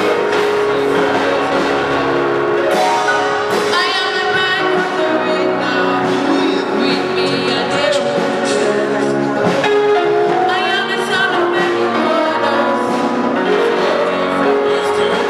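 Live gospel music: a church choir singing with instrumental accompaniment, the music playing steadily throughout.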